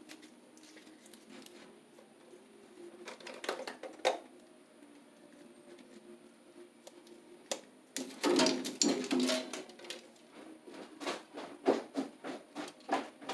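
Wire cutters snipping and Romex cable rustling as the scrap sheathing is clipped off the stripped cable. Scattered sharp snips, with a busier patch of crackling and clicking about eight seconds in.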